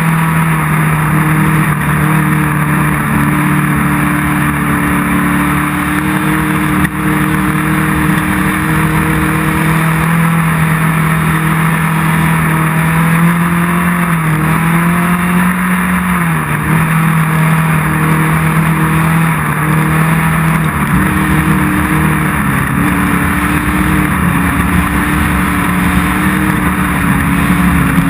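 Off-road race vehicle's engine running hard at a steady speed over constant wind and road noise. The engine note dips and recovers a few times around the middle.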